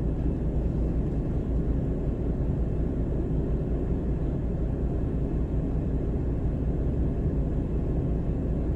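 Semi-trailer truck's diesel engine running steadily, a low even rumble.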